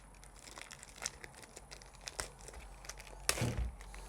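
Packaging being opened by hand: crinkling wrap and scattered clicks and light knocks, with the loudest knock about three seconds in.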